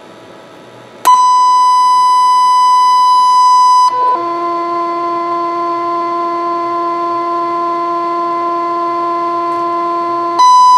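Audio feedback from a keyed Roadking CB radio's talkback circuit: a loud, steady, high-pitched tone starts about a second in, drops to a quieter, lower tone after about four seconds, then jumps back to the loud tone near the end. The feedback comes from a talkback mod that the radio does not like.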